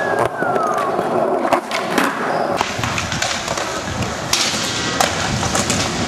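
Skateboard wheels rolling on smooth concrete, with several sharp clacks of boards striking the ground.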